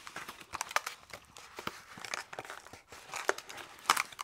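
Heavily taped SSD packaging crinkling and tearing as it is pulled at by hand: an irregular run of crackles and small snaps, loudest near the end.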